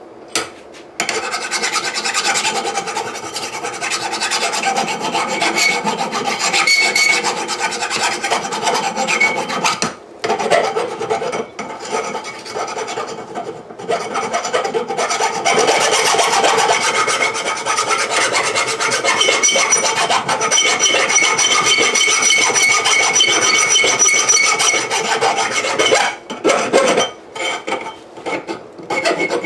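Grinder grinding the sharp edges off a steel anvil, a loud continuous rasping grind that begins about a second in, breaks off briefly twice, and near the end turns into short bursts.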